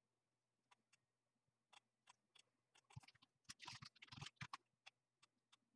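Faint, scattered clicks of a computer mouse, thickening into a quick run of clicks and scuffs about three seconds in.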